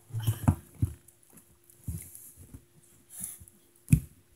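Several dull thumps and knocks of a person climbing up onto a lidded bin, the loudest just before four seconds in, over a faint steady hum.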